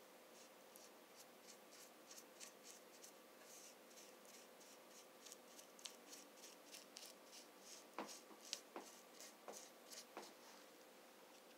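Faint, quick strokes of a small paintbrush dabbing white paint into a raised relief, about two soft swishes a second, with a few sharper taps of the brush near the end.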